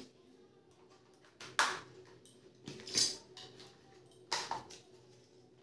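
Plastic toys being handled and set down, giving a few short, sharp clacks and knocks about a second and a half apart.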